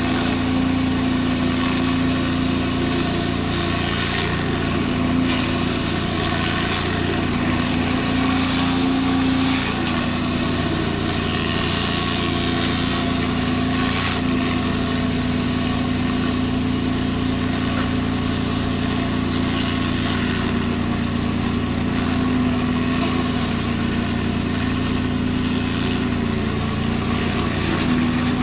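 Gas pressure washer engine running steadily under load, a 3400 PSI DeWalt, with the hiss of water jetting from a rotary surface cleaner working across concrete.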